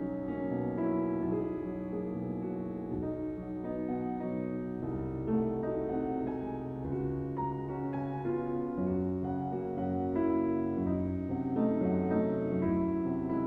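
Background piano music: held chords with a melody moving over them.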